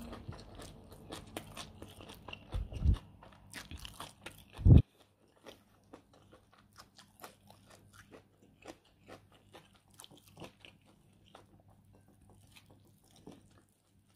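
Fingers squeezing and mixing cooked rice on a plate and picking up crisp stir-fried vegetable stems, giving many small sticky clicks and crunches. There are two dull thuds, a little under three seconds and a little under five seconds in, and the clicks grow sparse and faint after that.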